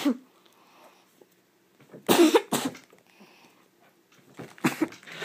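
A boy coughing and spluttering through a mouthful of marshmallows, in short bursts, the loudest pair about two seconds in.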